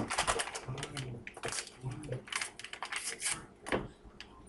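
Rapid crinkling, tearing and tapping of small Sazón seasoning packets being opened and emptied, a dense run of short crackles and clicks.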